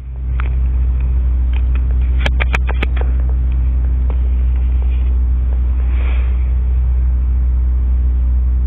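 Steady low hum, with a few light clicks about two to three seconds in.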